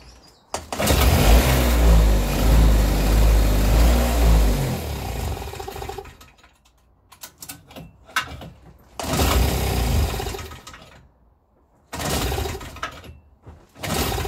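Small two-stroke engine running on methylated spirits, pull-started: it catches about half a second in and runs for about four seconds before dying away, by the owner's account because it has used up its fuel. It is then pulled over again, giving three shorter bursts separated by gaps.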